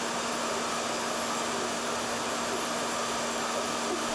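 Hair dryer running steadily, a constant rush of air over a steady motor hum. It is warming the fender so that the paint doesn't crack as the metal is pushed out.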